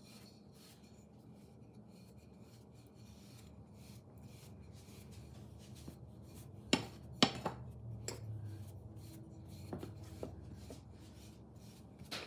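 Wooden rolling pin rolling back and forth over pizza dough on a glass board: a faint, repeated rubbing, with a few sharper knocks a little past the middle and one more near the end.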